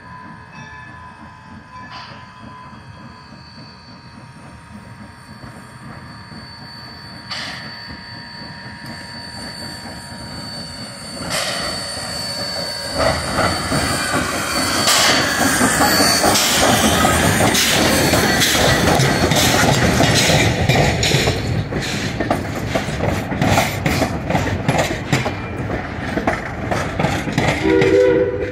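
Baldwin No. 26 steam locomotive and its passenger coaches approaching and passing close by, growing much louder from about halfway through. As it passes there is heavy running noise with rapid, closely spaced clicking of wheels over the rail joints.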